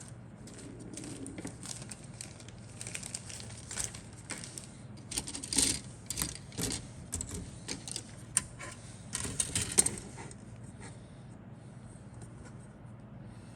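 Plastic model kit parts and packaging being handled: irregular clicks, light rattling and rustling, busiest in the middle and dying away about three quarters of the way through, over a steady low hum.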